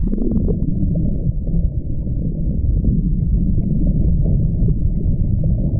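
Water rushing past an underwater camera beneath a sailboat under way: a steady, muffled low rush.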